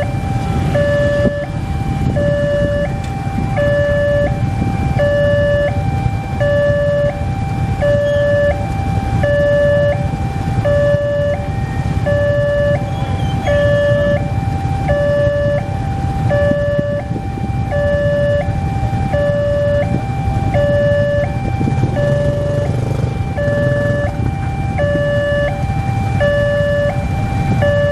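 Railway level crossing warning alarm sounding a steady two-tone signal, a low and a higher note alternating evenly, each about two thirds of a second long. Under it runs the low rumble of motorcycle engines idling at the closed crossing.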